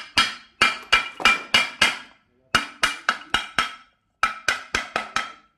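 Motorcycle cylinder barrel being tapped down onto its new gasket with a hammer handle: three quick runs of sharp ringing knocks, about seven, then five, then five, setting the barrel in place on the crankcase.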